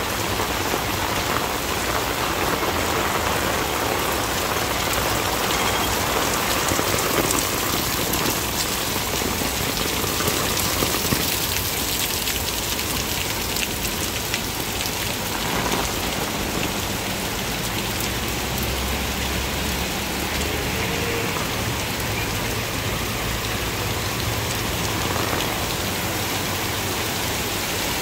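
Torrential rain at black-rainstorm-warning strength pouring steadily onto a flooded road and pavement.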